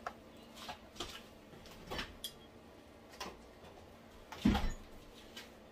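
Light scattered taps and scrapes of a wooden spatula against a plastic container as barbecue sauce is stirred, with a louder knock about four and a half seconds in.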